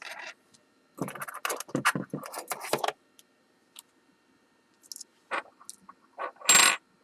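Small metal lock parts rattling and clicking as they are handled: a run of rattling for about two seconds, then a few separate sharp clicks, the loudest near the end.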